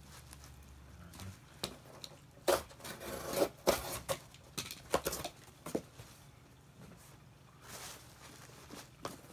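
Bubble wrap crinkling and cardboard rustling as a bubble-wrapped figure is handled and folded into a cardboard box, with a cluster of sharp crackles between about two and a half and six seconds in.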